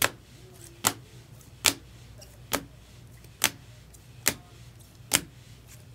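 A run of sharp clicks at an even pace, about seven of them a little under a second apart, over a faint steady low hum.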